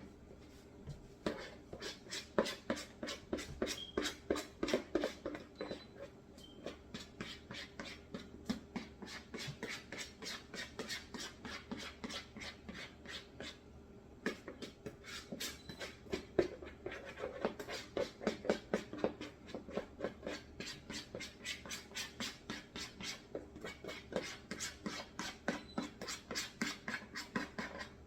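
Kitchen utensil scraping rhythmically in batter, about four strokes a second, with short pauses about 6 and 14 seconds in.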